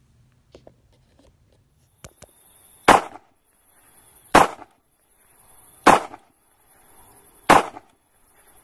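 Outro sound effect: four sharp bangs about every one and a half seconds, each one led in by a rising whoosh.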